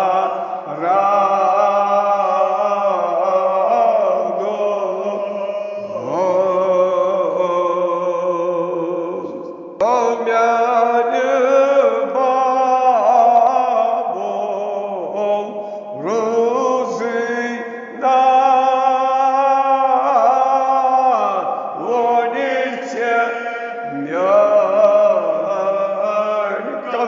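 A man's voice chanting a Kashmiri marsiya, a Shia elegy, in long drawn-out melodic phrases with short breaks between the lines.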